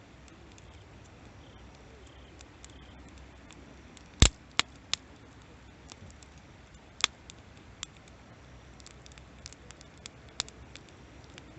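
Wood campfire crackling: irregular sharp pops and many small ticks over a faint hiss. The loudest pop comes a little past four seconds in, followed quickly by two more.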